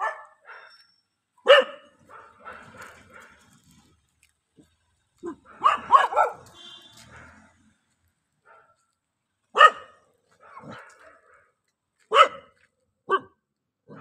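A dog barking in single loud barks every few seconds, with a quick run of three or four barks about five to six seconds in.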